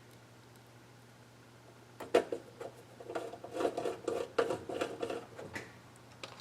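Faint steady hum, then about two seconds in a run of clicks and clattering as small hard objects are handled and knocked about on a workbench, lasting a few seconds.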